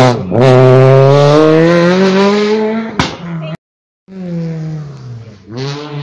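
Peugeot 208 rally car's engine revving hard as it accelerates out of a hairpin: a short loud rasp, then the pitch climbs steadily for about three seconds, with a sharp crack just before it cuts off. After a sudden break, another rally car's engine is heard further off, its revs dipping and rising as it comes up to the bend.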